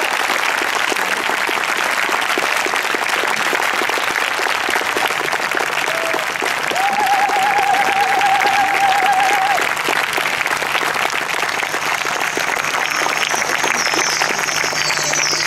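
Audience applauding steadily, with a wavering high note held for about three seconds in the middle.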